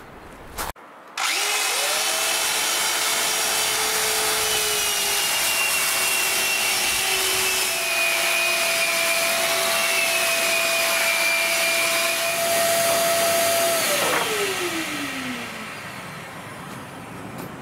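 Handheld electric sander, hose-connected to a dust extractor, running steadily with a constant whine as it sands a wooden mast spar flat. Near the end the sander is switched off and its whine falls in pitch as it spins down, leaving a quieter steady noise.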